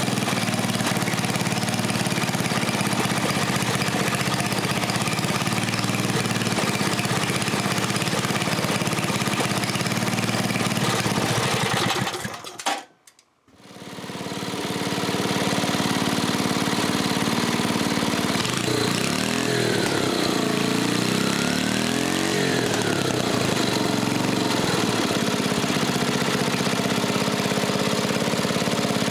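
A 5 hp Briggs & Stratton single-cylinder flathead engine running on an adapted, fully adjustable Tecumseh float-bowl carburetor while the carburetor is being adjusted. The sound cuts out briefly about halfway through and fades back in. A little later the engine speed rises and falls a few times.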